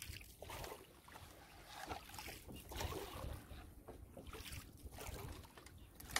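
Faint splashing and water movement around a small boat as a fishing net is paid out, swelling and fading unevenly, with some wind on the microphone.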